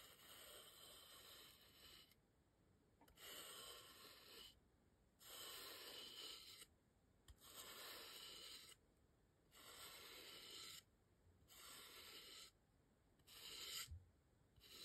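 Paintbrush with gold paint brushing and scratching across a styrofoam star, in about seven separate strokes of a second or so each with short pauses between.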